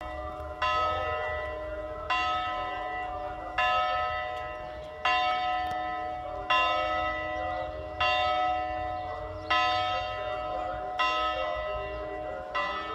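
A single church bell tolling slowly, struck nine times at an even pace of about one stroke every second and a half. Each stroke rings on and fades until the next.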